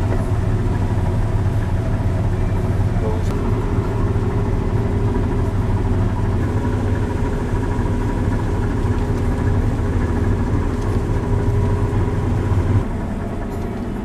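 Claas Trion 720 combine harvester at work cutting barley, its Cummins diesel and threshing machinery giving a steady, loud drone heard from inside the cab. Near the end the deep hum drops away and the sound falls slightly in level.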